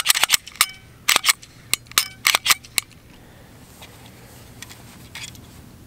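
Metallic clicks and clinks from handling a Glock 20 pistol, about a dozen sharp ones in under three seconds, a few ringing briefly, then only a low steady background.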